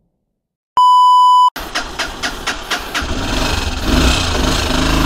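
A half-second electronic beep, then a motorcycle engine starting: a second or so of quick, even strokes, about six a second, before it settles into a steady idle.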